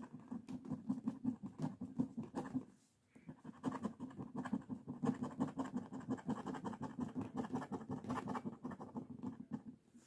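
A coin edge scratching the latex coating off a paper scratch-off lottery ticket in quick back-and-forth strokes, with a brief pause about three seconds in.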